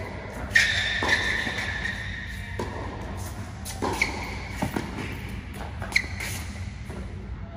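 A tennis rally: the ball struck by rackets and bouncing on the hard court, a sharp hit about every two seconds, echoing in the large indoor hall.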